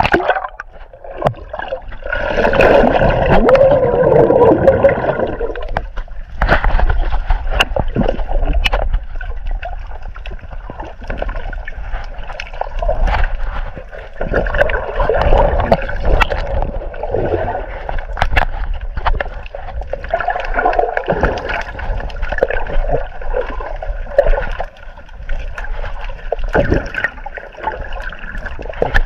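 Water gurgling and sloshing around a camera held at and just under the surface, with scattered sharp clicks and splashes; loudest a few seconds in.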